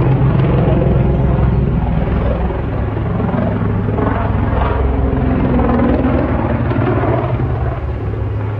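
Twin-turboprop airliner (ATR 72) falling out of control, its engines and propellers giving a loud steady drone.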